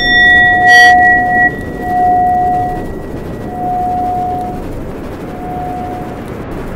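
Bell-like ringing tone, struck once, then swelling and fading four times, each weaker than the last, over a steady low rumbling drone.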